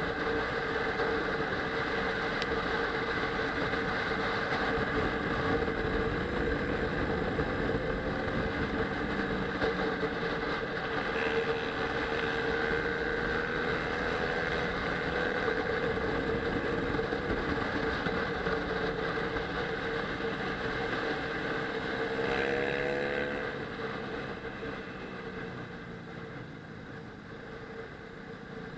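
Kawasaki ER-6n parallel-twin engine running at steady revs under wind rush while riding. Near the end the engine's pitch rises briefly, then the sound falls off as the bike slows for a bend.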